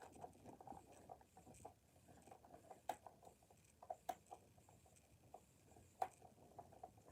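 Faint scattered clicks and taps of small objects being handled, with a few sharper ticks about three, four and six seconds in.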